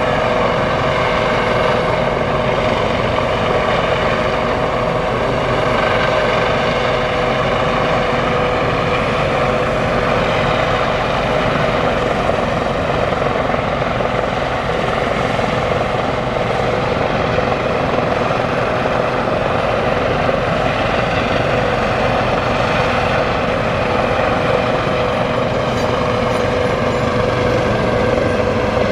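Heavy engines running steadily, with a constant engine whine over a dense rumble.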